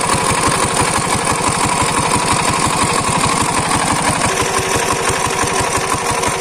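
Single-cylinder diesel engine driving an irrigation water pump, running at a steady speed with a rapid, even chugging beat.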